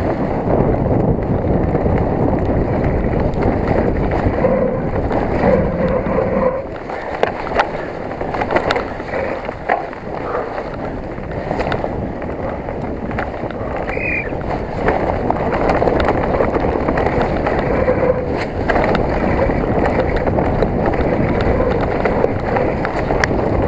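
Specialized Enduro 29 mountain bike descending a rough trail at speed: a steady rush of wind on the microphone and tyres on dirt, with frequent knocks and rattles from the bike over bumps and a brief squeak about halfway through.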